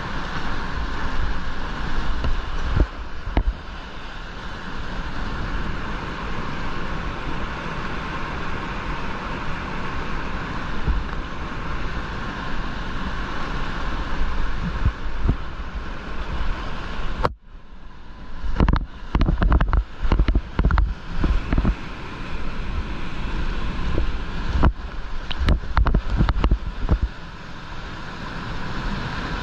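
Whitewater rapid rushing close around a kayak, heard through a GoPro action camera, with wind buffeting the microphone. About seventeen seconds in the sound cuts out abruptly, then irregular heavy splashes and thumps follow for roughly ten seconds as the boat runs the drops, before the steady rush of the rapid returns.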